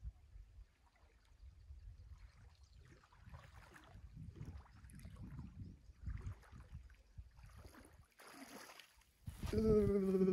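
A man swimming in a lake: soft, irregular splashing and sloshing of water around him, with low wind rumble on the microphone. A man's drawn-out voice starts near the end.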